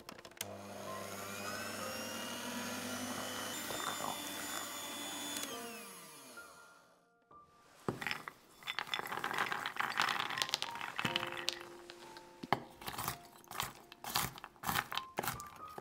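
Electric hand mixer running with its beaters in batter and flour, then winding down in falling pitch about six seconds in. Hazelnuts and Brazil nuts then rattle out of a glass bowl onto a wooden cutting board, followed by a run of sharp knocks as a knife chops them on the board.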